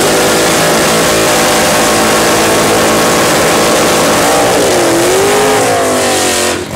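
Drag-racing Chevy Nova SS doing a burnout: engine held at high revs with the rear tires spinning on the pavement. The pitch wavers in the second half, then the engine drops off suddenly near the end as the burnout stops.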